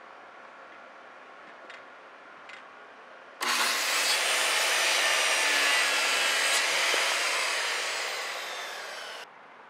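Handheld circular saw cutting through a wooden board. The blade's whine and the rasp of the cut start suddenly about three seconds in. They last about six seconds, ease off a little toward the end, then cut off abruptly. Before the cut there is only faint ambience with a couple of small clicks.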